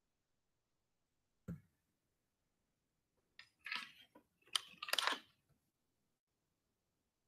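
A single low thump about one and a half seconds in, then a short cluster of clicks and rustling scrapes around four to five seconds in, over near silence.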